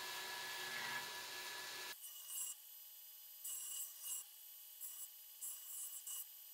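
Belt grinder grinding steel: a dense steady grinding noise for about two seconds that cuts off abruptly. Then come four short hissy scrapes as the steel is pressed briefly against the belt.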